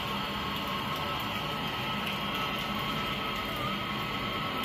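Handheld gas torch burning with a steady hiss as it heats the copper refrigerant pipe joint at an air-conditioner outdoor unit's service valve for brazing.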